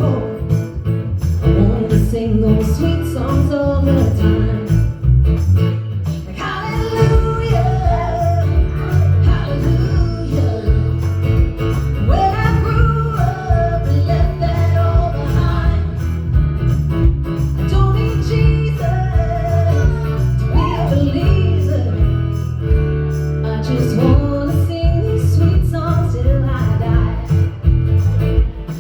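Live folk-country song: guitar-led band accompaniment with a singer's voice over it.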